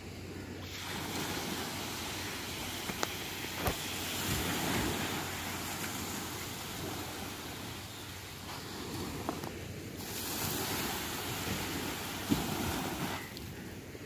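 Small waves breaking and washing onto a sandy shore, a steady surf wash, with wind on the microphone and a couple of brief knocks.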